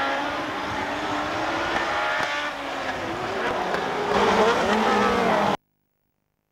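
Rallycross cars racing at full throttle: several engine notes rising and falling as the cars accelerate and change gear, loudest from about four seconds in as a car passes close by. The sound cuts off abruptly about five and a half seconds in.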